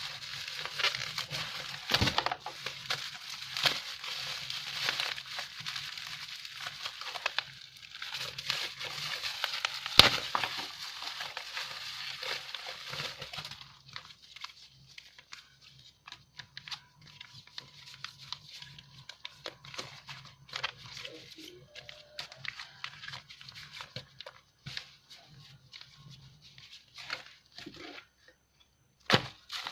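Packaging being crinkled and torn open by hand, with two sharp knocks. After about 14 seconds it turns to quieter, scattered rustles and small clicks as items are handled.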